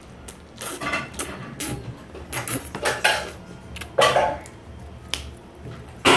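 Fork clicking and scraping against a bowl of spaghetti during eating: a series of short sharp clinks, the loudest near the end.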